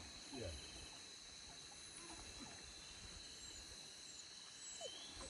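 Faint, steady high-pitched drone of insects, with a couple of short, distant yelps from the hunting dogs, about half a second in and again near the end.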